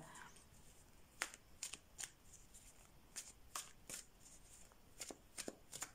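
Tarot cards being shuffled by hand: faint, irregular soft slaps and flicks of cards.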